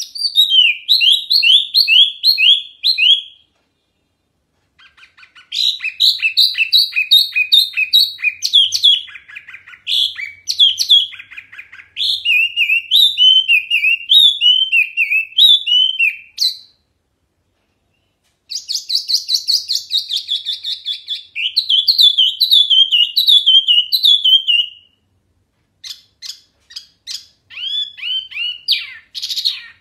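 Caged wambi mini songbird in full song, loud and clear: long runs of quick, sharp whistled notes, mostly falling, repeated in series. The runs are broken by three short pauses.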